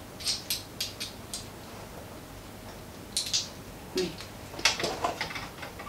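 Small ring light parts clicking and ticking as they are handled and fitted together by hand. There are several quick clicks in the first second and a half, one about three seconds in, then a cluster near the end.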